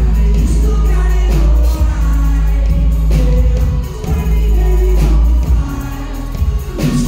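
Loud live indie-pop band: heavy deep bass, drums and keyboards, with the lead singer singing into a handheld microphone.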